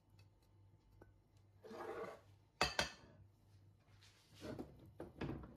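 Faint handling of kitchenware around an aluminium pressure cooker: soft clinks and a sharp knock a little under three seconds in, over a faint steady low hum.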